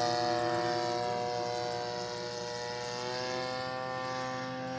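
Single-cylinder two-stroke DLE 35cc petrol engine of a radio-controlled Corsair model plane in flight overhead, a steady propeller drone whose pitch creeps up slightly in the second half.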